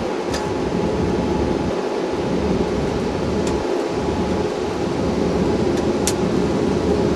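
Steady rumble of engine and airflow noise inside a Boeing 777-200ER cockpit, with a few short, sharp ticks.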